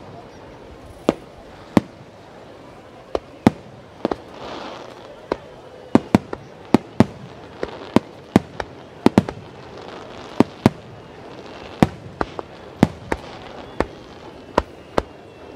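Starmine fireworks display: aerial shells bursting in rapid, irregular succession, sharp bangs often coming in quick pairs and clusters, with a brief hissing swell about four seconds in.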